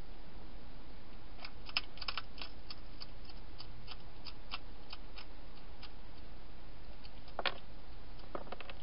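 A hedgehog crunching dry food: a quick, irregular run of small sharp crunches for a few seconds, then a louder crunch and a few more near the end, over a steady hiss.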